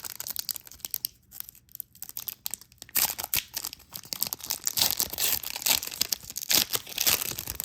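Crinkling and rustling of trading cards and their packaging being handled, in dense crackly bursts, quieter for the first few seconds and then busier.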